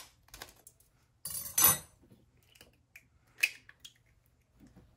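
An egg being cracked into a bowl: a few sharp taps and clinks of shell and bowl, the loudest about a second and a half in.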